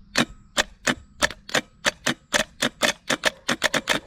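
Bench-tested starter solenoid from a Case 580 backhoe clicking sharply as the battery's positive lead is tapped against it, about sixteen clicks that come faster and faster. The starter engages but barely spins, which the owner takes for a bad starter.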